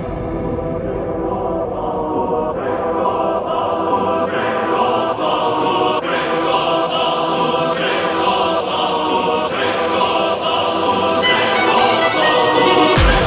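Background music: voices singing held chords over a steady beat.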